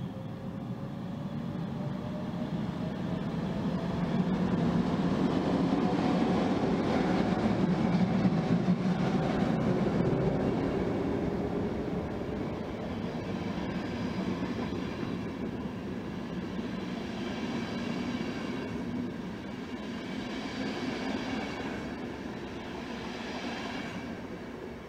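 ÖBB class 1144 electric locomotive hauling double-deck CityShuttle coaches running past along the platform. A tone rises in pitch as it comes in, the sound is loudest as the locomotive goes by, and the coaches' rolling rumble follows until it cuts off suddenly near the end.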